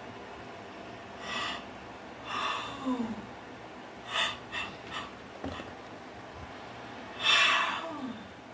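A person yawning: long, breathy yawns, twice trailing off in a falling moan, with a few short, quick breaths in between. The loudest yawn comes near the end.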